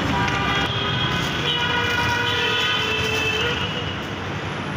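Busy street traffic noise with several vehicle horns sounding together at different pitches, dying away about three and a half seconds in.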